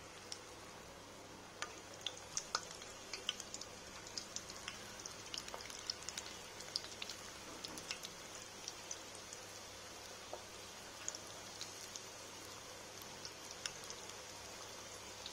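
Corn pakoras deep-frying in hot oil in a steel pan: a quiet steady sizzle studded with many small irregular crackles and pops as the batter cooks.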